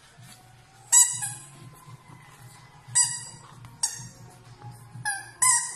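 Red rubber squeaky ball squeaking as a puppy bites it: five short, high squeaks, spaced out at first, with the last two close together near the end.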